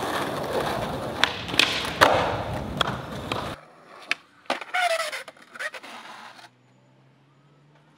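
Skateboard wheels rolling on concrete, with several sharp clacks of the board hitting the ground. After a sudden cut the rolling stops and a few quieter, separate board clacks follow.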